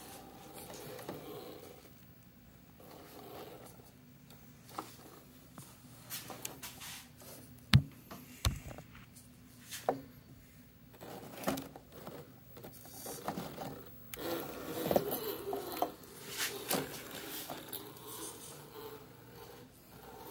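RC rock crawler creeping slowly over wooden blocks: scattered knocks, scrapes and rubs of the tyres and chassis on the wood, one sharp knock about eight seconds in, over a faint steady drivetrain whir.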